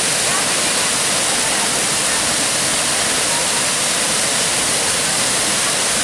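Bâlea Waterfall, water cascading in many strands down steep rock slabs, giving a loud, steady rush of white noise without a break.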